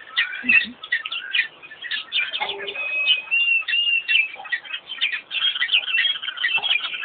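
Many wild birds chirping and calling over one another in a dense chorus, with one clear whistled note held for about a second a little before the middle.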